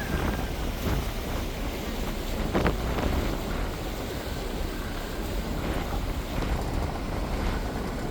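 Wind buffeting the microphone over the steady low rumble of a ferry under way, with water wash. There is one brief sharp knock about two and a half seconds in.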